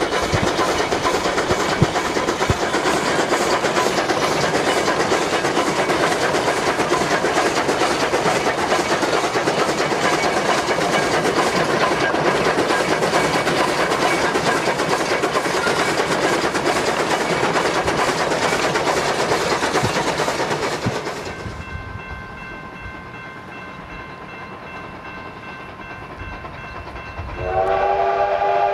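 A train running past with a loud, steady rumble and rattle that fades about 21 seconds in. Near the end a train horn sounds a sustained multi-note chord.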